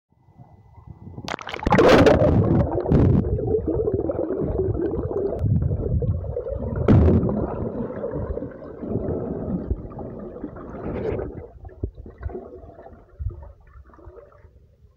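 Muffled water sound picked up by a smartphone's microphone held underwater: gurgling and sloshing against the phone. It swells into a loud rush about a second in, has a sharp jolt around seven seconds, and grows quieter over the last few seconds.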